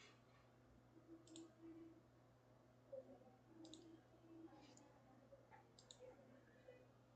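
Near silence with a faint low hum, broken by a few faint clicks of a computer mouse.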